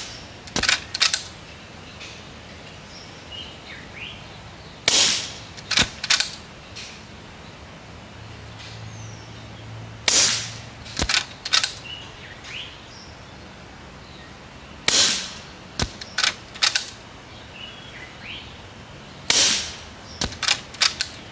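Skout Epoch .25 calibre regulated PCP air rifle with a shrouded barrel, firing four shots about five seconds apart. Each shot is a sharp crack with a short tail, followed within a second by two or three short sharp clicks.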